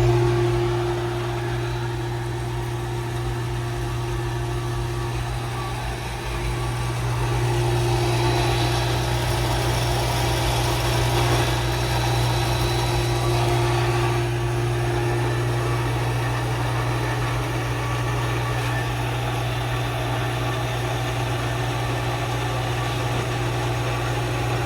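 An engine running steadily at idle, a constant low hum with a steady higher tone over it.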